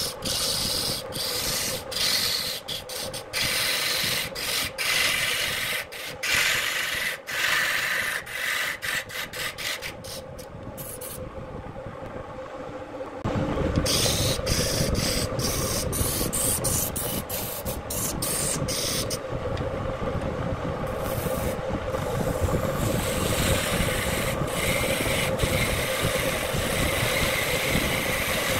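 Electric wood lathe running with a steady motor hum while a hand-held turning tool scrapes and cuts the spinning wooden vase blank, a rasping, shaving sound. The first half is peppered with sharp ticks; about halfway through the cutting grows louder and fuller.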